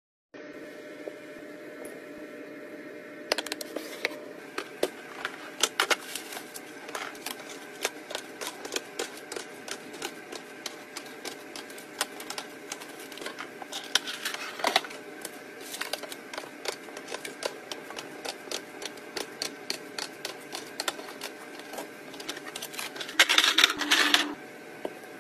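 Hands setting items into clear plastic organisers: an irregular run of light clicks and taps, such as eggs set one by one into a plastic egg tray, over a steady faint hum, with a dense clatter near the end.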